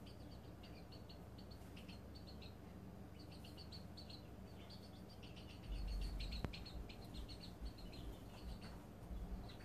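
A flock of six-week-old Serama chicks making soft, rapid trilling chirps as they settle down and fall asleep. A low rumble comes in just past halfway, with a single click shortly after.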